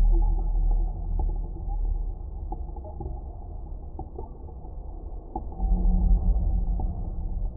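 Dark ambient 'ghosts of the Titanic' drone sound effect: a deep, muffled rumbling drone with faint scattered creaks and clicks. It swells loudest at the start and again from about two-thirds of the way through.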